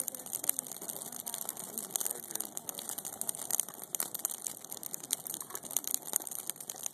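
Christmas tree branches burning in an open fire, crackling with a dense run of sharp pops and snaps.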